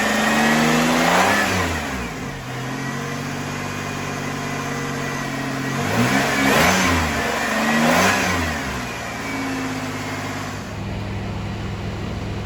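Supercharged 3800 V6 of a 2004 Chevrolet Impala SS idling and revved three times, its pitch rising and falling back each time. It is running on a fresh base tune.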